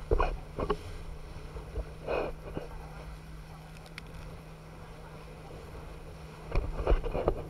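Water rushing and wind buffeting the microphone of a camera riding a banana boat towed at speed, over a steady low hum. Loud sudden jolts of wind and spray hit the microphone near the start and again near the end.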